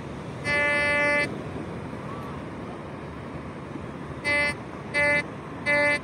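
Metal detector's audio signal sounding as its search coil sweeps over buried metal in beach sand: one long buzzy beep about half a second in, then three short beeps in quick succession near the end, each pass over the target setting off the tone.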